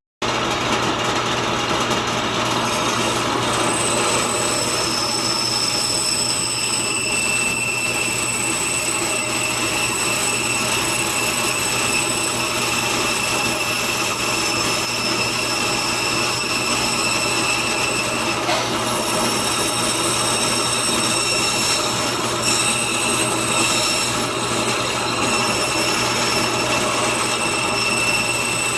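Band saw running steadily and cutting walnut, a loud even noise with a low hum and a high whine. It starts abruptly.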